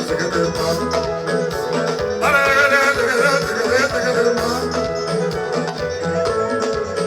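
Live Congolese rumba band music: electric guitars over a steady beat, with singing.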